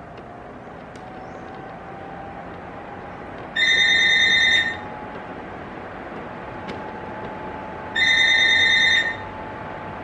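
Arno Silence Force 40 cm electric fan running at its lowest speed: a steady rush of air with a faint motor tone that rises slightly in pitch during the first few seconds, then holds steady. Two loud, high electronic beeps, each about a second long, sound about four seconds apart.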